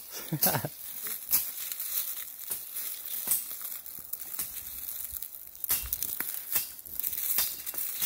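Footsteps crunching and crackling through dry leaf litter and brushing through undergrowth, in an uneven walking rhythm.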